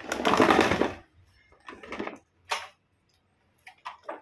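A Morgan canister vacuum cleaner and its power cord being handled: a brief rush of scraping noise about a second long, then a few short rustles and several light clicks.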